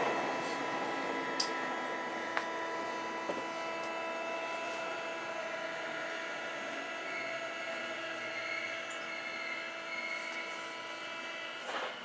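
Tokyo Metro 8000 series subway car with Mitsubishi armature-chopper control, heard from inside the car above the chopper unit: a steady electrical whine of several fixed tones over running noise, slowly getting quieter. A few light clicks, and a short knock near the end.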